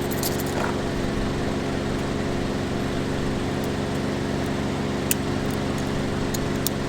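Car engine idling steadily, heard from inside the cabin, with a few light sharp clicks.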